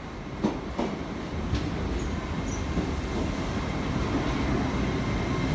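LNER Azuma high-speed train drawing slowly into the platform, its running noise growing as it nears. There are a couple of sharp clicks about half a second and just under a second in, and a thin steady whine comes up in the second half.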